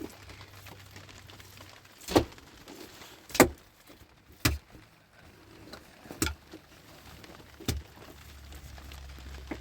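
Five sharp knocks, one to one and a half seconds apart, the second the loudest, like something being struck or set down hard.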